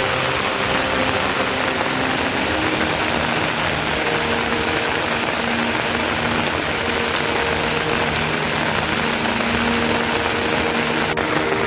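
Steady heavy rain falling, a dense even hiss without let-up, with faint low held notes shifting underneath.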